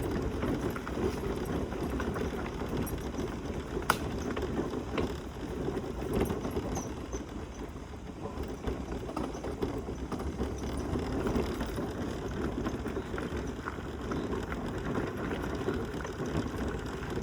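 Mobility scooter rattling as it rolls over a rough, bumpy road: a continuous jittery clatter, with one sharper knock about four seconds in.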